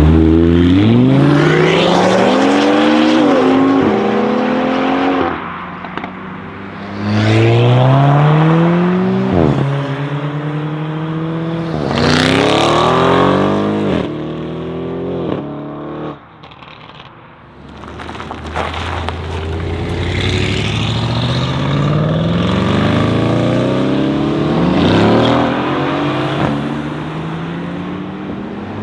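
Audi RS7 C7's twin-turbo V8 with a decatted Akrapovic exhaust accelerating hard through the gears. The engine pitch climbs and then drops sharply at each upshift, several times over. About two-thirds through the sound falls away briefly, then a long, slower climb in pitch follows.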